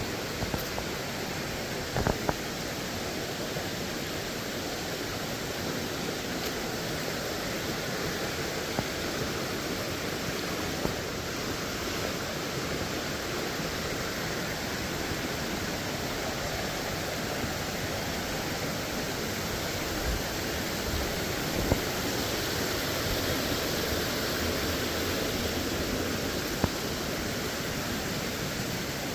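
Waterfall: a steady, even rush of falling water, broken by a few brief knocks.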